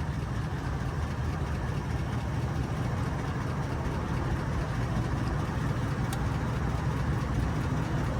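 A vehicle engine running steadily, an even low hum with no change in pitch.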